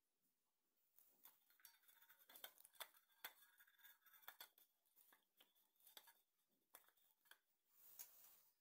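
Faint clicks and light scraping of fingers rubbing ghee around the inside of a small stainless steel bowl.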